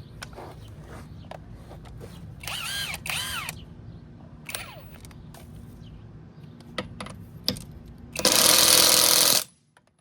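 A power tool running in one burst of just over a second near the end, starting and stopping sharply, over a steady low hum. Earlier, two short high squeaks.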